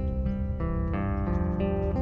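Background music led by acoustic guitar, picked notes changing over a steady low accompaniment.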